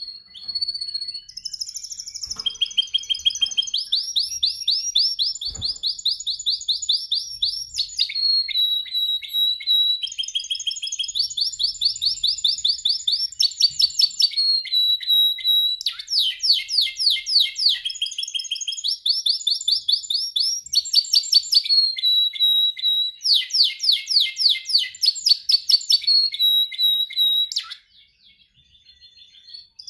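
Canary singing a long song of rapid high trills, each run of repeated notes held for a second or two before switching to a new pitch. The song stops near the end.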